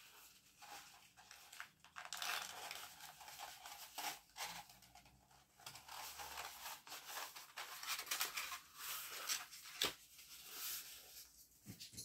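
Paper scroll being rolled up by hand: irregular dry rustling and crinkling of the paper, with a sharp click about ten seconds in.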